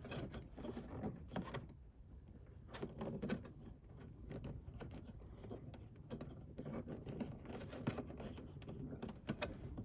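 Faint handling sounds as a rubber edge-trim strip is pressed by hand onto the plastic edge around a car's liftgate latch: scattered light clicks and rubbing.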